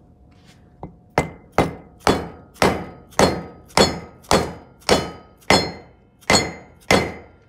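A hammer strikes a metal seal driver about a dozen times, roughly two blows a second, each blow ringing briefly. The blows drive a grease seal into the hub of a brake rotor.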